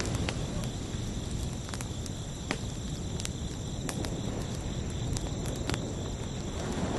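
Crickets chirping steadily over a low wash of ocean surf in the lull between waves, with a few sharp clicks; the surf begins to swell again near the end.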